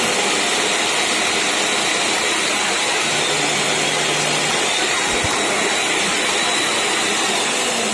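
National vacuum cleaner motor switched on and running steadily, a loud rush of air with a faint high whine. It is powered up as a test after repair, and it runs properly.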